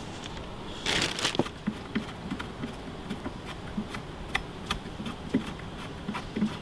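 A long screw being turned by hand through upholstery fabric into the wooden frame of a sofa arm: a burst of rustling handling noise about a second in, then scattered small clicks and ticks as the screw is worked in.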